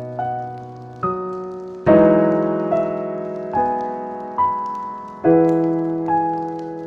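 Slow, calm solo piano, a new note or chord struck roughly every second and left to ring and fade, with faint crackling of a fireplace underneath.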